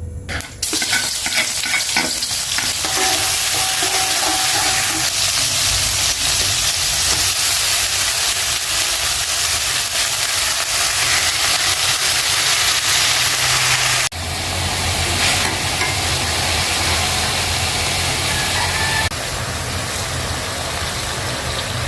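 Stir-fry sizzling in hot oil in a pan while it is stirred, a loud, dense hiss that starts suddenly about half a second in and jumps abruptly twice later on.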